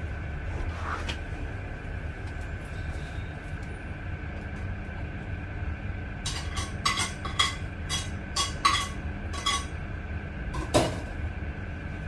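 Food scraps being scraped off a ceramic plate: a quick run of short sharp scrapes and clinks in the second half, over a steady low background hum.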